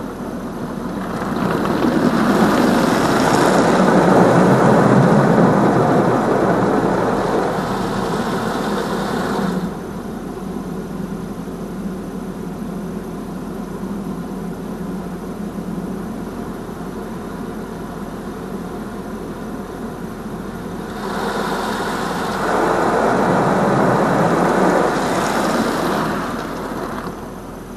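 High-pressure water jets of a touchless automatic car wash spraying over the car's windshield and roof, heard from inside the cabin. The spray comes in two loud passes, one of about eight seconds starting a second in and a shorter one about twenty seconds in, with a steady lower rush of water and machinery between.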